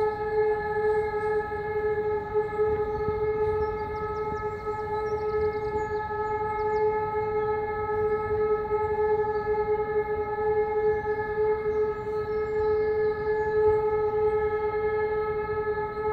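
Civil-defence air-raid siren sounding the all-clear (Entwarnung): one long, steady tone that holds its pitch, with no rise and fall.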